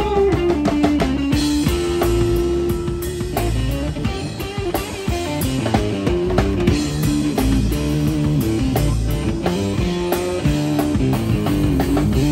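A live rock trio of electric guitar, electric bass and drum kit playing an instrumental passage with no singing: held and bending lead-guitar notes over a steady bass line and drum beat.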